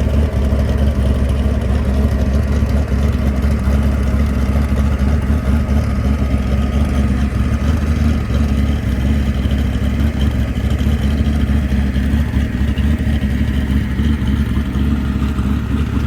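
Drag race car engine idling loudly and steadily with a deep rumble, not being revved.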